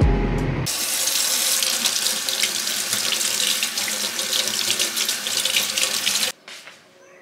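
Kitchen faucet running into a stainless steel sink while hands are rinsed under the stream. The water sound starts about a second in and cuts off suddenly near the end.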